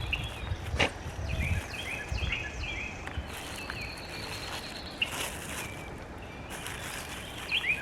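A songbird singing runs of short, quick down-slurred notes, one run about a second in and another near the end, with a few sharp clicks and outdoor background noise.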